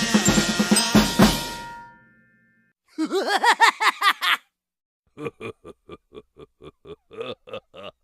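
Cartoon sound effects: a drum kit sting of fast snare and bass drum hits with cymbal, ringing out and fading within about two seconds. After a short gap comes a quick run of short pitched squeaks, then a steady string of short pitched blips about three a second.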